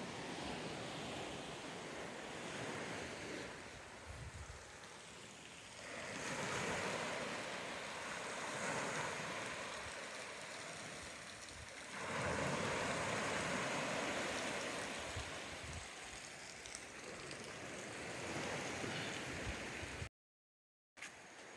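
Steady rush of water, waves washing on the shore. It gets louder about 6 and 12 seconds in and drops out briefly near the end.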